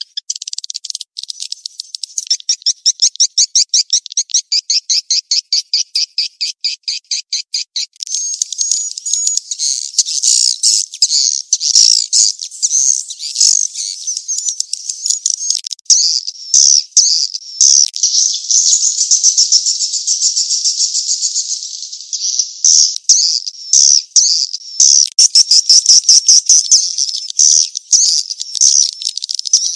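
Edible-nest swiftlet calls played as a swiftlet-house lure track, the mating-chase version of the call. For about the first eight seconds it is an even train of high chirps, several a second. It then turns into a dense, high twittering chatter like many birds calling together.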